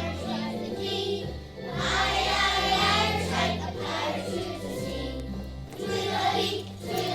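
A group of young children singing a pirate song over a recorded musical accompaniment, its bass notes stepping about once a second.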